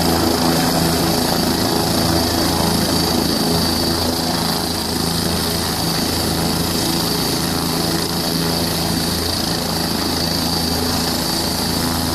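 Helicopter running on the ground with its main rotor turning, a steady low drone under a high, even whine.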